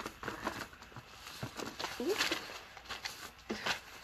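Paper and packaging rustling and tapping as items are handled in and out of a subscription box, with a short rising-and-falling tone about two seconds in.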